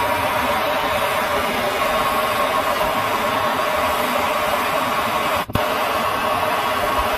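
Handheld gas torch flame hissing steadily as it heats a copper tee joint for soldering, with a brief break about five and a half seconds in.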